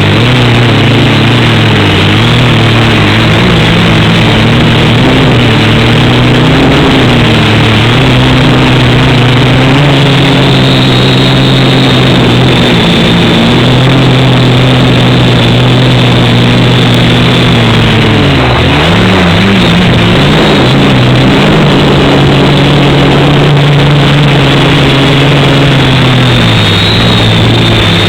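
Quadcopter electric motors and propellers buzzing loudly and steadily, the pitch shifting with throttle, with a brief drop and wobble about two-thirds of the way through.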